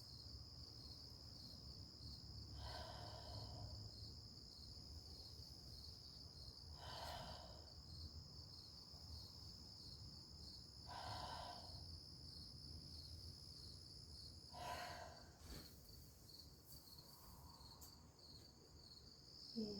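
Steady, finely pulsing high chirring of insects, with four soft breaths, one about every four seconds, as a yoga pose is held.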